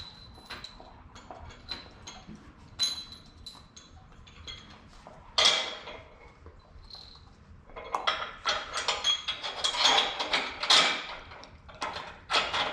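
Metal hardware and hand tools clinking and clattering as sawmill parts, bolts and washers are handled: scattered light clicks at first, one sharp loud clank about five seconds in, then a busy run of clinks and rattles through the last few seconds.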